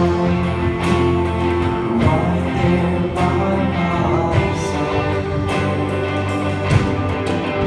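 Live band playing an instrumental passage of a gospel song: sustained chords over a strong bass line, with drum and cymbal hits keeping the beat.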